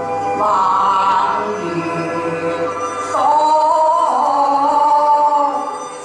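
Accompaniment music with long held melody notes that change pitch every second or two.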